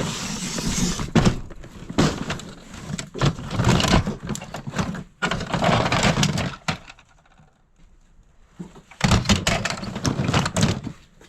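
Hands rummaging through a box of toys and other items: irregular clattering, knocking and rustling, with a quieter lull in the middle before another spell of clatter.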